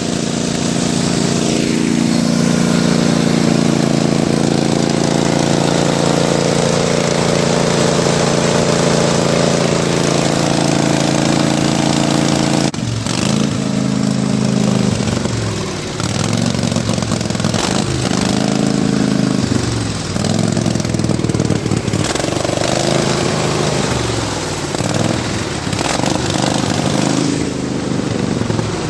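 Riding lawn mower engine running, steady for the first half; about 13 s in the sound changes abruptly and the engine's pitch then rises and falls over and over as it revs and speeds up and slows down.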